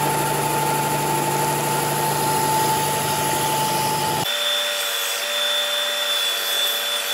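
Porter-Cable belt and disc sander running steadily with a board's corner held against the sanding belt, rounding it over. About four seconds in, the sound changes abruptly to a thinner, higher-pitched whine.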